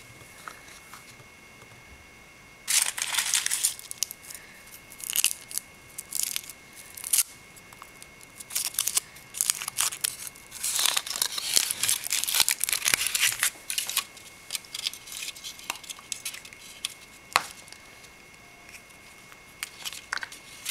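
Foil wrapper of a chocolate surprise egg being torn and crinkled off by hand, in bursts of rustling with small sharp crackles in between.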